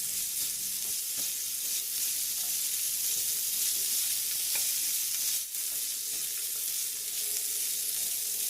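Bite-sized marinated chicken pieces sizzling in hot oil as they are stir-fried, with a few light knocks of the spatula against the pan.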